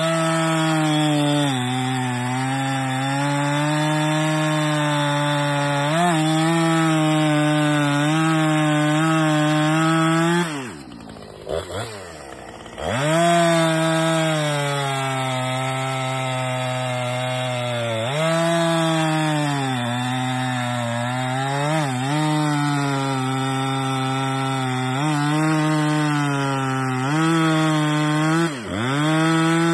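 Husqvarna 455 Rancher two-stroke chainsaw, stock, with an 18-inch bar and .325 chain, cutting through a thick log at full throttle, its pitch sagging and recovering under load. About ten seconds in it drops back toward idle for a couple of seconds with one short blip, then revs up and cuts again, easing off briefly a few more times and near the end.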